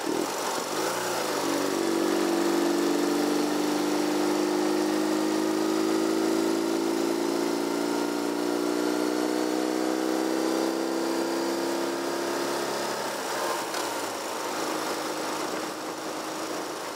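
Vehicle engine running under load while driving, its pitch rising slowly as it picks up speed. About thirteen seconds in the engine note drops away, leaving steady road and wind noise.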